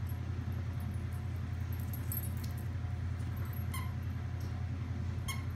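A dog's squeaky hedgehog toy squeaking twice in the second half as the dog bites it, over a steady low hum.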